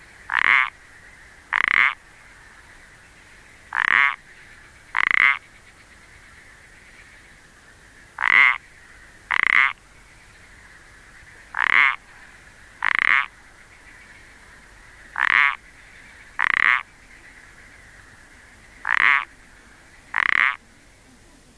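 Male parsley frog (Pelodytes punctatus) calling: short creaking notes in pairs about a second apart, a pair every three to four seconds. Behind it is a faint, steady hum.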